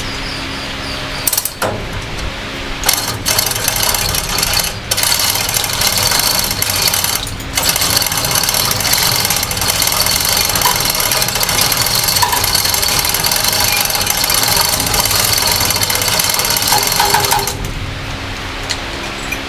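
Chain hoist ratcheting and chain clattering as the 4M40 diesel engine is lowered, a dense rattle that starts about a second in and stops shortly before the end.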